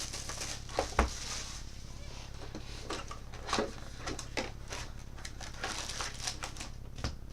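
Trading card packs and cards being handled: scattered short crinkles, taps and clicks over a steady low hum.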